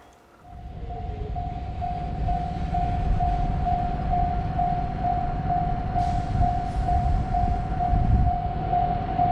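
Japanese level-crossing warning bell ringing its electronic "kan-kan" tone, about two dings a second, starting about half a second in. A low rumble builds underneath and is loudest around eight seconds in.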